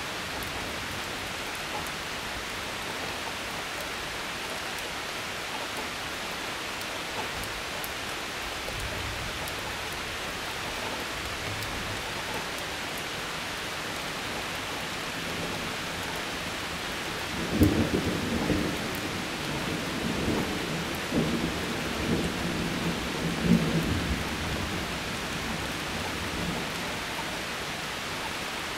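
Steady hiss of heavy rain, with thunder: a faint low rumble partway in, then about two-thirds through a sharp clap followed by several seconds of rolling, cracking peals before it fades back to the rain.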